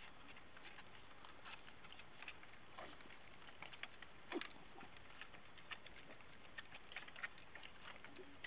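Faint scattered taps and clicks of puppy paws and claws on wooden deck boards over a steady low hiss, with one sharper tap about four seconds in.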